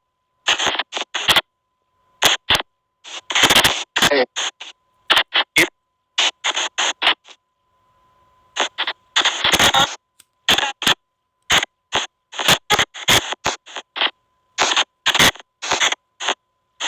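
SP White Noise Box ghost-box app running: a rapid string of chopped snippets of noise and voice-like sound, each a fraction of a second long, with abrupt silent gaps between them and a faint steady high tone underneath.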